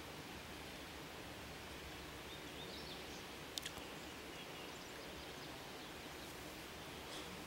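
Quiet woodland ambience with a steady hiss, a few faint bird chirps about two to three seconds in, and a sharp double click just past the middle.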